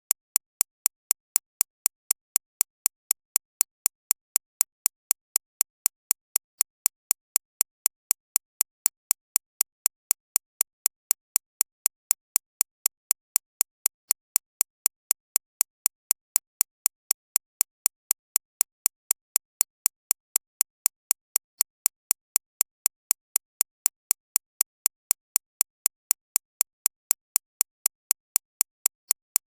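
Digitally synthesised recreation of a shockwave therapy (ESWT) machine's impact pulses: sharp, evenly spaced clicks at about four a second, with a high, bright ring tuned to the 6.5–13.5 kHz range.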